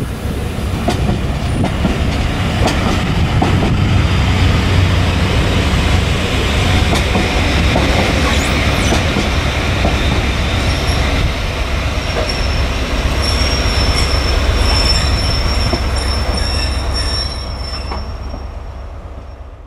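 Train of passenger coaches rolling past, the wheels rumbling on the rails with a few clicks over the joints. From about halfway through, a thin high wheel squeal joins the rumble. The sound eases off and fades out near the end.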